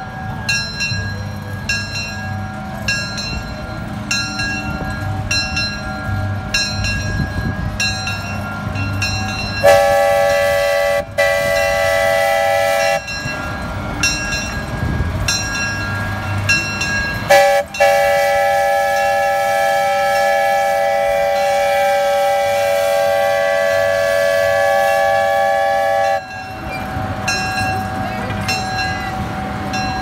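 Ride train's horn blowing two long chord blasts, the first about ten seconds in with a brief break, the second about nine seconds long. A bell clangs about once a second before and after the blasts.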